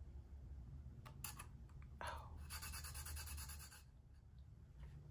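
Faint scratching and a few light clicks of a weeding hook lifting a vinyl decal off a glitter-coated tumbler. This is followed by a crackly rustle of about a second and a half as the adhesive vinyl stencil is peeled away.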